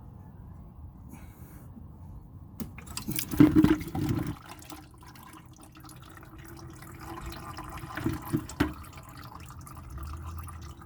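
Power steering fluid spilling out of a BMW E46's disconnected power steering hose, with a sudden loud splash about three seconds in, then uneven splashing and dripping.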